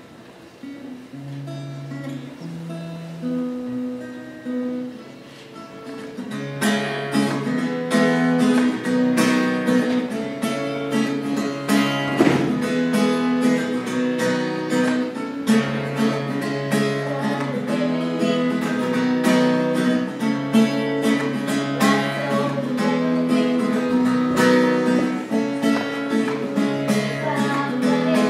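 Acoustic guitar strummed in a slow song: lighter picked chords at first, then fuller, steady strumming from about six seconds in.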